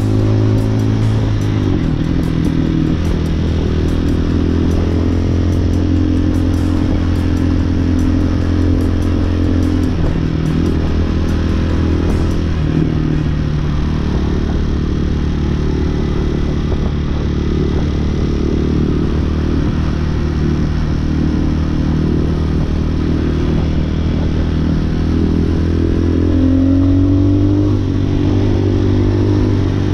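Hawk 250cc dual-sport motorcycle's single-cylinder four-stroke engine running under way, its valve lash freshly adjusted. The engine note drops about a second and a half in, shifts a couple more times in the middle, and climbs near the end as the bike accelerates.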